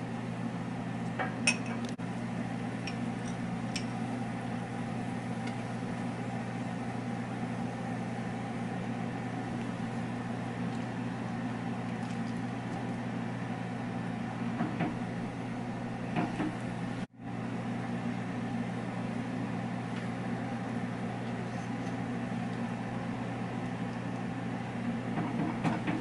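Steady low hum of a kitchen motor running, with a few light clinks of a utensil against a small dish in the first couple of seconds.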